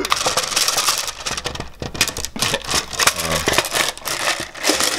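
Glass marbles in a mesh bag clinking and rattling against each other and the sides of a metal tin as the bag is worked out of the tin, a dense run of small clicks.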